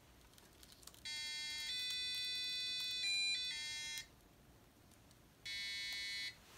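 Electronic beeping from a knee arthrometer's measuring unit as its force handle is pulled: a held tone from about a second in that steps in pitch twice, briefly louder just before it stops, then a second, shorter tone near the end.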